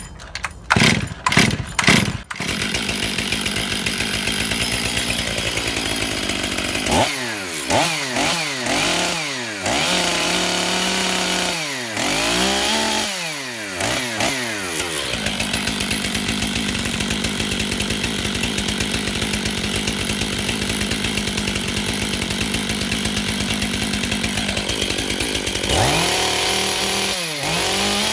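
Stihl MS500i fuel-injected two-stroke chainsaw engine starting up with a few sharp pops, then running. It is revved up and down several times, settles back to a steady idle, and is blipped again near the end. This is its first run on a new piston and cylinder.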